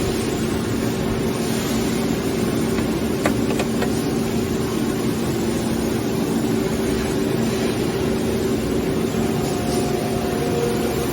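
Steady industrial machinery hum with two constant low tones over a broad noise. There is a short click about three seconds in, and a faint higher tone near the end.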